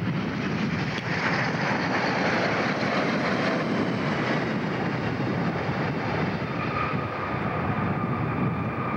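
McDonnell Douglas DC-10-10 airliner landing: the steady noise of its three turbofan engines as it flares low over the runway and rolls out. About six and a half seconds in, a steady engine whine rises above the noise.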